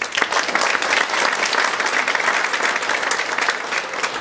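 Audience applauding, a dense spread of many hands clapping that sets in at once and eases slightly near the end.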